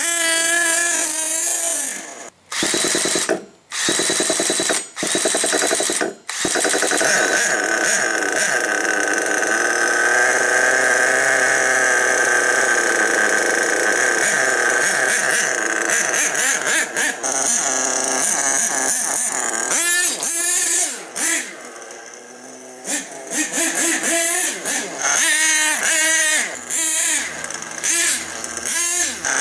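HPI Savage X 4.6 RC monster truck's small nitro engine running and revving in bursts, with several abrupt cuts in the first few seconds, a steadier stretch in the middle, and rising and falling revs near the end.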